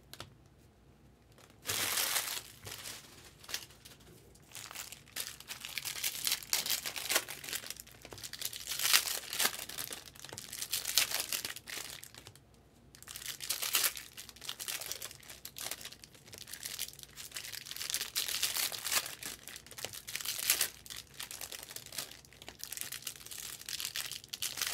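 Foil trading-card pack wrappers crinkling and tearing in irregular bursts as packs are ripped open by hand, with a short quiet pause at the start and another about halfway through.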